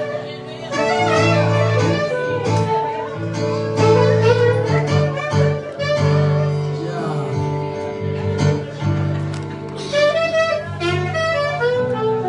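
Instrumental worship music: a saxophone playing a melody with guitar and violin over long held low notes.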